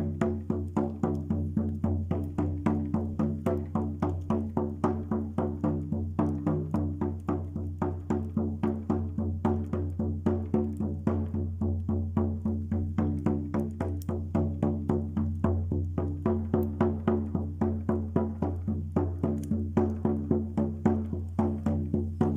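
Music: quick, even plucked or struck notes, about four a second, over a steady low drone.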